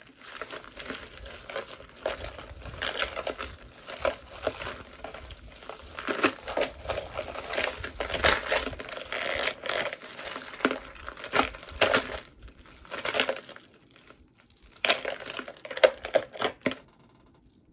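Plastic crinkling and rustling, with many small sharp clicks, as jewelry is handled, almost continuous until it drops away near the end.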